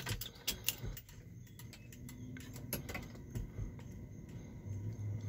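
Scattered light clicks and rattles of an ignition key and key ring in a 1978 GMC truck's steering column as the key is turned to switch on the dash radio, with a faint low hum near the end.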